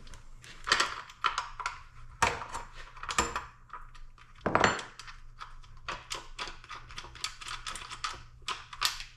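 Irregular metal clicks, clinks and a few louder clacks of hand tools working on a Stihl MS400C chainsaw, as its side cover is taken off.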